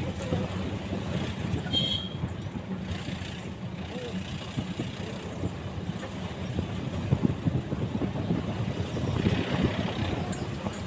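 Steady low rumble of a running motor vehicle, with a short high-pitched beep about two seconds in.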